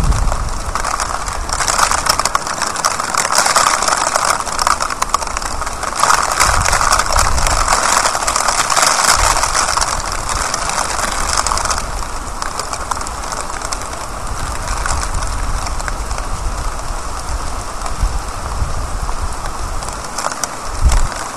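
Steady heavy rain pouring onto a street and building surfaces during a thunderstorm, a constant hiss that eases slightly about halfway through, with a few brief low rumbles.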